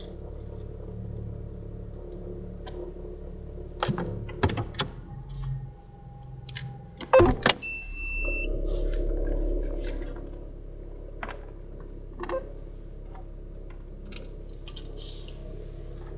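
Car engine idling after a cold start. About seven seconds in come a few loud clunks and a short two-tone beep, then a louder drone for about two seconds: the abnormal noise that seems to come on when the car is shifted into reverse.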